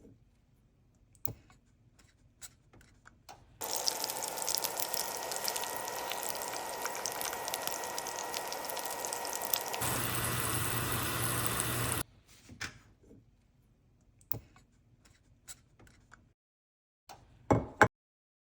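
Kitchen tap running steadily for about eight seconds, then shut off abruptly, its sound turning deeper partway through. Light clicks and knocks of kitchen utensils around it, with a sharper knock near the end.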